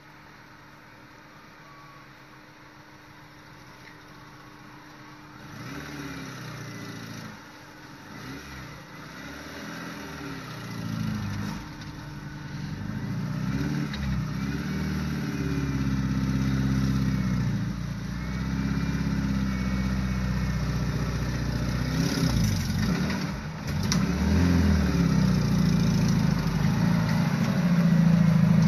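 Suzuki Samurai's four-cylinder engine driving up a rocky wash toward the listener, revving up and easing off again and again as it picks its way over the rocks. It is faint at first, comes in from about five seconds, and grows louder as it approaches, loudest near the end as it pulls alongside.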